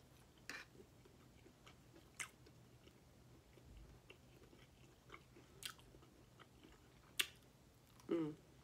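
A person chewing food with the mouth close to the microphone: faint chewing with scattered wet mouth clicks, the sharpest about seven seconds in, and a short hum of the voice near the end.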